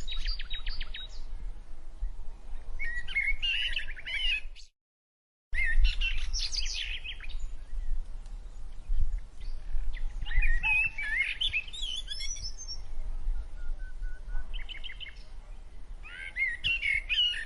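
Small birds chirping and trilling in repeated quick bursts of calls, over a low rumble. The sound cuts out completely for under a second about five seconds in.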